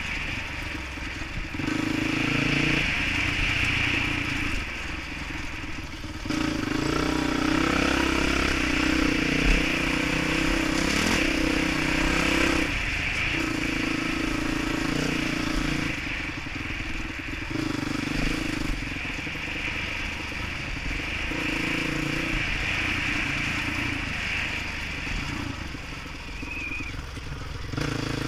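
Dirt bike engine on a trail ride, the throttle opening and closing every second or two so the engine note rises and drops again and again, heard from the rider's helmet.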